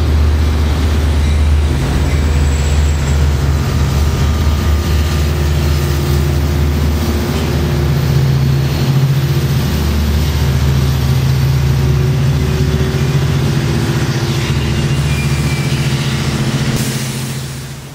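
Long Island Rail Road diesel locomotive's 12-cylinder EMD 710 engine running loud as its push-pull train moves past at close range, a deep steady engine drone that fades away near the end.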